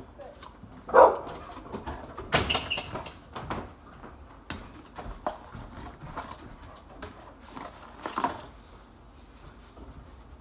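A person gagging and retching a few times while forcing down food, the loudest heave about a second in.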